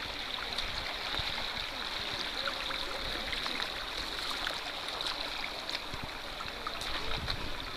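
Shallow creek running over rock, a steady rush of water with small splashes and drips as a seine net is worked in the water.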